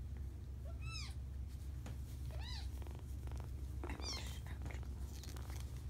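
Three-week-old kitten mewing: three short, high-pitched mews, each rising and falling, about a second and a half apart.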